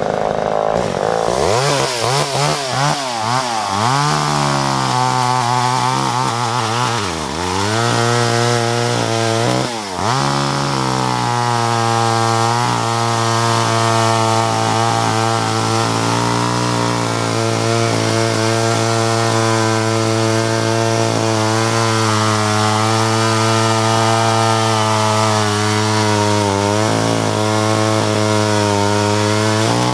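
Vintage Homelite Super EZ Automatic two-stroke chainsaw running. It is revved up and down several times over the first ten seconds or so, then holds a steady speed, with one brief dip near the end.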